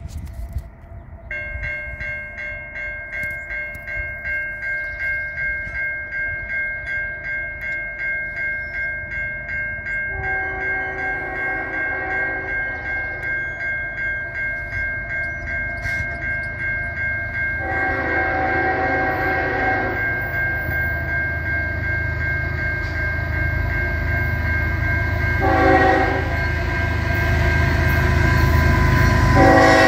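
A railroad crossing bell starts ringing about a second in, pulsing about twice a second. The approaching GE ES44AC lead locomotive then sounds its air horn in the grade-crossing signal: two long blasts, one short, and a final long one beginning near the end. All of this plays over the low rumble of the diesel locomotives, which grows louder as the train comes closer.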